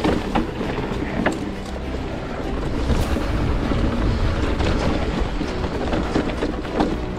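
Wind rushing over the microphone while a Giant Reign E+ electric mountain bike rides a rough trail on Maxxis Assegai tyres, with the tyres rolling on dirt and several sharp knocks and rattles as the bike hits bumps.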